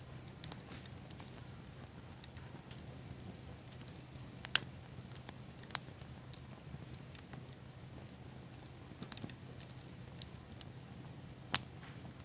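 Bonfire of pine cones and seed pods burning with a faint, steady crackle. Sharp pops break through it: a loud one about four and a half seconds in, another near six seconds, a quick little cluster around nine, and a loud one near the end.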